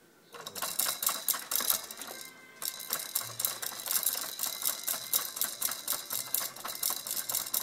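A baby's toy shaken by hand, rattling in fast, even clicks: one run, a brief break about two and a half seconds in, then a longer run that stops near the end.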